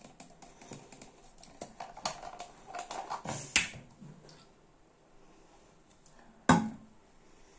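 Small clicks and taps of a plastic bottle of rose water being handled and tipped into a palm, with a sharp click about three and a half seconds in and a heavier knock about six and a half seconds in.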